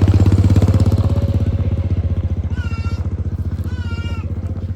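A small engine running close by with a rapid, even pulse, slowly getting quieter. Two short high-pitched wavering calls sound over it about halfway through and again near the end.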